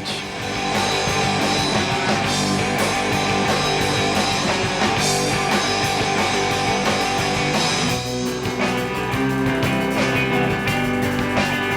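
Rock music with electric guitar and drums; the dense full-band sound thins out about eight seconds in to sparser, held guitar notes.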